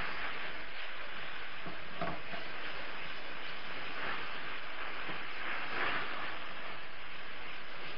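Onion, garlic and tomato purée sizzling steadily as they fry in a pan, with occasional brief stirring; the purée is being fried to cook off its raw smell.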